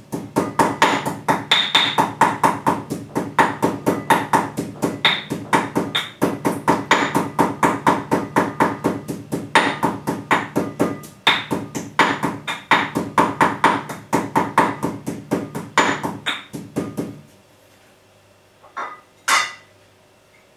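Pestle pounding dried anchovies and chillies in a mortar for raw sambal: quick, even strikes about four or five a second, kept light so the anchovies are not pounded too fine. The pounding stops near the end, followed by two lighter knocks.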